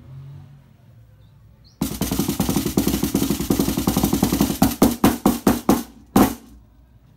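Homemade wooden drumsticks playing a makeshift drum made from a metal lacquer-thinner can. A fast roll starts about two seconds in and lasts about three seconds, followed by about five separate strokes and one final stroke with a short ring.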